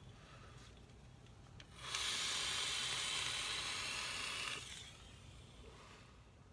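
Long draw on a Vandy Vape Capstone RDA on a squonk mod fired at 80 watts: a steady airy hiss of air and vapour pulled through the atomizer, starting about two seconds in and lasting close to three seconds.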